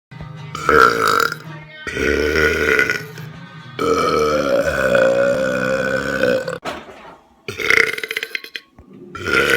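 A person belching loudly on command, five belches in a row; the third, in the middle, is drawn out for nearly three seconds, and the last is still going at the end.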